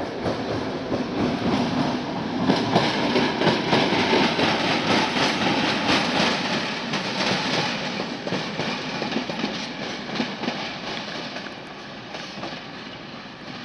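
Train wheels rolling and clattering over rail joints in a railway yard, loudest in the first half and then steadily fading away.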